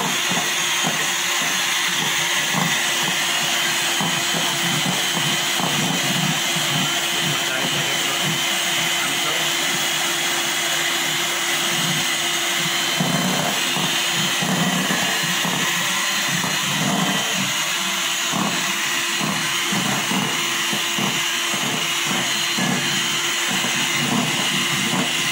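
Electric hand mixer running steadily, its beaters whipping a white cake mixture in a steel bowl.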